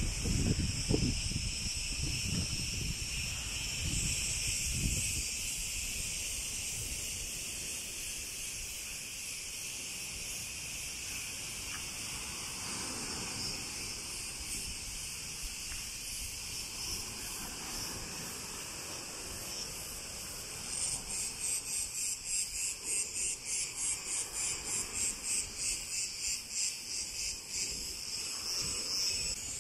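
A chorus of cicadas singing steadily from the trees. In the last several seconds it pulses at about two beats a second. A few low thuds sound in the first five seconds.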